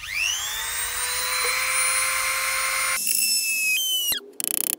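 Small corded electric rotary tool (mini drill) spinning up with a quickly rising whine, then running at a steady high whine. After about three seconds the pitch changes and drops, and near the end there is a short rapid buzz as the bit bites into a brush-handle piece being cut.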